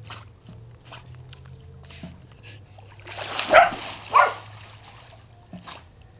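A dog swimming in a pool, its paddling strokes splashing the water softly. About three and a half seconds in there is a louder flurry of splashing, twice, as it churns the water.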